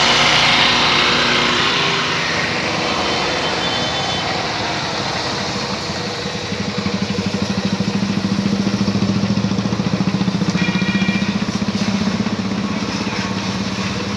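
Honda motorcycle's single-cylinder engine running on the stand, at first at a slightly raised speed, then settling from about halfway into a slow, even, pulsing idle.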